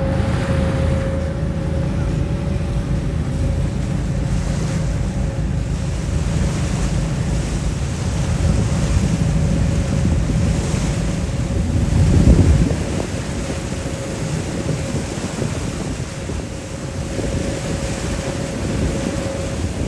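Wind buffeting the microphone on a passenger ferry under way, over the steady low drone and hum of its engine and water rushing past the hull; one stronger gust about twelve seconds in.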